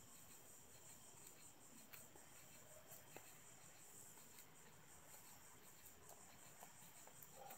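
Faint, steady chirring of crickets, with a few soft taps and scuffs from slippered feet shuffling on concrete.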